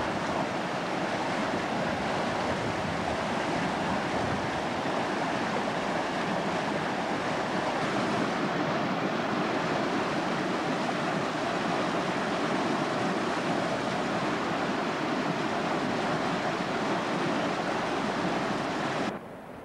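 Fast-flowing mountain river rushing over rocks in white-water rapids: a loud, steady rush of water that cuts off abruptly just before the end.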